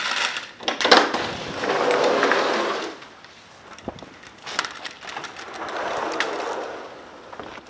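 Crunching and rustling footsteps on dry grass and fallen leaves, with a few sharp clicks and knocks.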